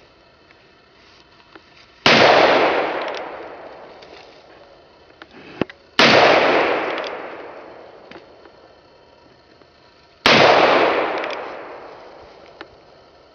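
Colt Single Action Army revolver fired three times, about four seconds apart. Each shot is followed by a long rolling echo that dies away over about two seconds.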